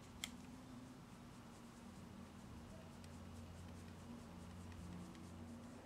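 Faint soft scratching of a makeup brush stroking cream bronzer onto the skin at the temple, over a low steady hum. A single small click about a quarter second in.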